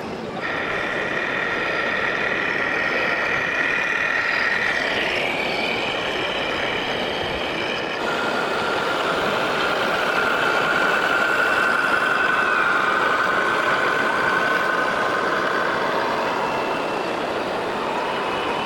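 Radio-controlled model truck or machine running: a steady mechanical whine over a hiss of gear and drive noise, its pitch shifting a few times.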